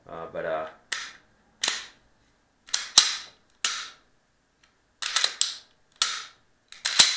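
Glock 19 Gen 4 pistol being worked by hand: a series of short metallic clacks and rasps from the slide being racked and the trigger dry-fired, with the sharpest clicks about three seconds in and near the end. The slide of this new, not yet broken-in gun is stiff when drawn back to charge the striker.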